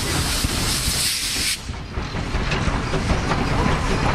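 Steam locomotive hissing steam, the hiss cutting off suddenly about a second and a half in, over the steady low rumble of the train on the rails.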